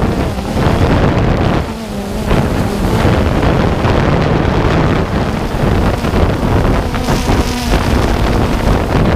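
DJI Phantom 2 quadcopter's motors and propellers whirring, heard from the drone's own camera, with wind buffeting the microphone. The pitch of the hum wavers as the drone manoeuvres.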